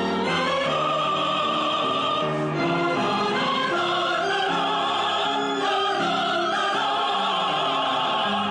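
Music: a choir singing over an orchestral accompaniment, with sustained chords changing every half second or so.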